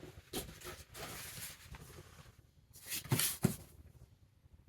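Rustling and light handling noise as computer parts and packaging are handled, with two short, louder sounds a little over three seconds in.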